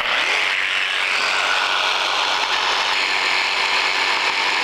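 Jigsaw with a coping foot starting up and running steadily at full speed, its blade cutting a cope into the end of a baseboard.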